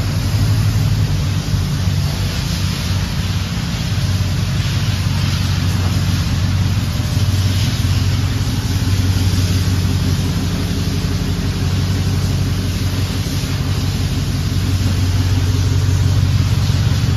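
2023 Ford Raptor R's supercharged 5.2-litre V8 idling, a low, steady exhaust note from its tailpipes.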